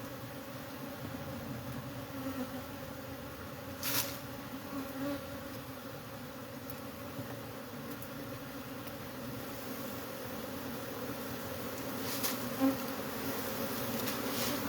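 A colony of disturbed honeybees giving a steady defensive buzz: the warning of angry bees whose comb is being torn out. The buzz grows a little louder toward the end, with a sharp knock about four seconds in and another near the end.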